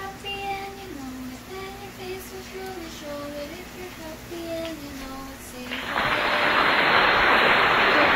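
A high voice sings a slow tune in held, stepping notes. About six seconds in, a loud steady sizzle of eggplant slices frying in hot oil cuts in suddenly.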